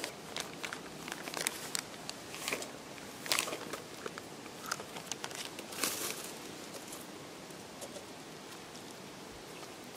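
Scattered light clicks, taps and rustles of cookware and food being handled while a meal is cooked, a few louder knocks in the first six seconds, then quieter.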